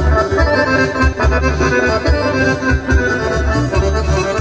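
Balkan folk music from a live band: accordion playing the melody over a steady bass beat, in an instrumental passage between sung verses.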